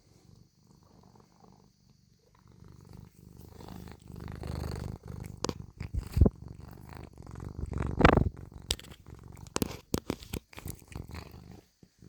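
Domestic cat purring. The purr is faint at first and grows louder about three seconds in. Two loud bumps or rubbing noises come around the middle, followed by a few shorter clicks.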